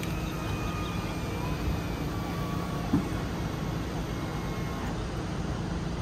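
Fifth wheel RV's automatic six-point levelling jacks running: a steady low motor hum as the jacks work, with a short knock about three seconds in.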